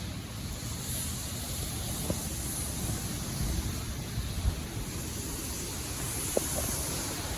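Hurricane-force wind gusting and buffeting the microphone as a steady low rumble, with a few brief knocks about two, four and a half and six seconds in.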